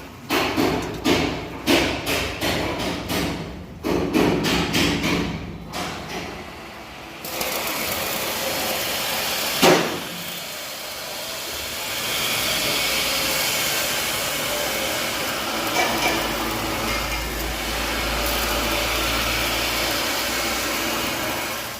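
Repeated hammer blows on metal, roughly two a second, for the first several seconds. Then a long steady rushing noise begins, with a single sharp knock partway through.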